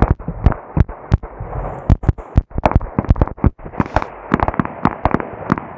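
Rapid, irregular gunfire from several AR-style rifles fired together on a firing line: about two dozen sharp shots in a few seconds, overlapping at uneven intervals.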